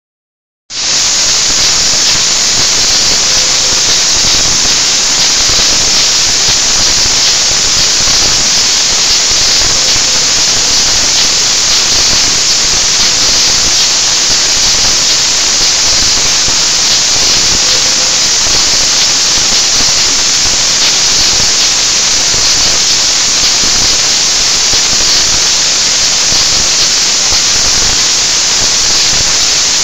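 BOPP adhesive tape slitting machine running at speed: a loud, steady hiss of the wide tape unwinding and the slit strips rewinding onto rows of small rolls. It starts abruptly about a second in.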